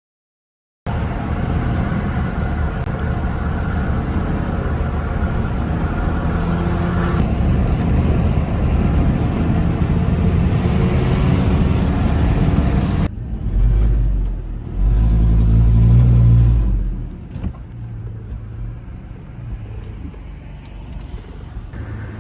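Vehicle driving: steady engine and road rumble, swelling into a louder low rumble for a couple of seconds about two-thirds of the way through, then running more quietly.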